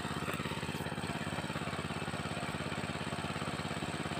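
Two-wheel hand tractor (kuliglig) engine running steadily with an even, regular beat while plowing a flooded rice paddy.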